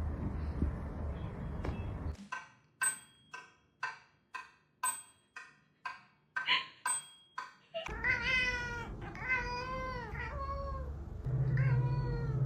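A domestic cat meowing. First comes a couple of seconds of muffled rumbling noise, then a run of short, sharp meows about two a second, then several long, drawn-out meows that rise and fall in pitch.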